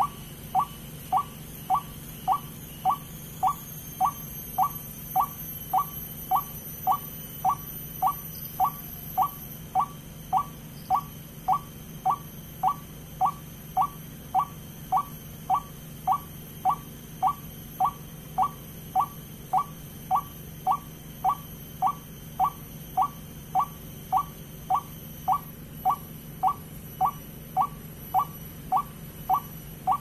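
White-breasted waterhen call played back as a trapping lure through a Bluetooth speaker: a short upward-sliding note repeated with machine-like regularity, a little under two a second. A steady low hum runs beneath it.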